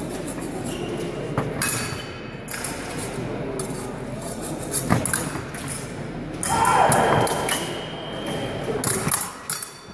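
Épée blades clicking and ringing against each other and fencers' feet thudding on the piste during a bout, over chatter in a large hall. A sharp knock about halfway through, and a louder burst of sound shortly after.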